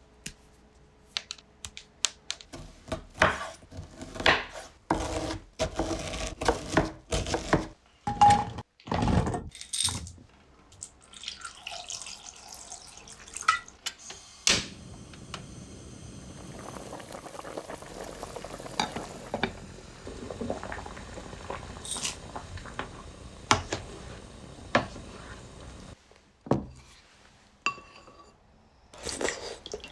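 Kitchen preparation sounds: a run of clinks and knocks from dishes and utensils, then about ten seconds of steady running water, then a few more knocks.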